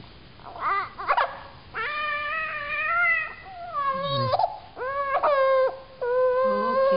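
An eight-month-old baby crying on her tummy: a run of drawn-out wavering wails with short catches of breath between, fussing in protest at tummy time, which she hates.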